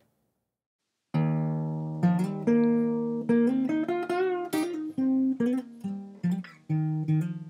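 Near silence for about a second, then instrumental music starts: plucked guitar notes ringing one after another, some of them bending in pitch.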